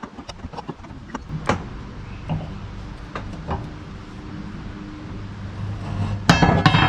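Scattered metallic clicks and knocks from setting up the sawmill's log clamp, then a loud rattling clatter with a metallic ring near the end.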